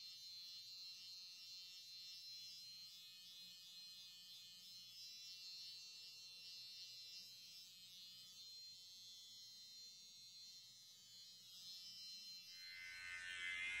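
Wahl electric hair clippers running with a faint, steady buzz while cutting hair at the nape, getting louder near the end.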